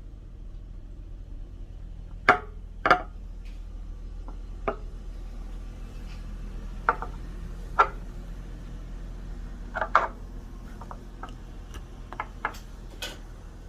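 Sharp, scattered clicks and knocks of hard metal parts: an aftermarket Vortex V3 gas cap being handled and fitted onto the motorcycle's fuel tank. The loudest knocks come a couple of seconds in and again around ten seconds in, over a low steady hum.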